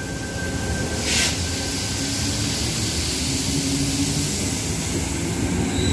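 Eight-car Tangara electric suburban train departing the platform and running past close by, a steady rumble of wheels and traction motors. A short hiss comes about a second in, and a rising motor whine starts near the end.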